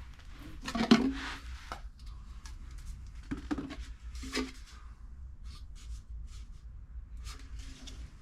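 Handling clatter: a series of separate knocks and clinks as tools and containers are set down and moved about, the loudest about a second in.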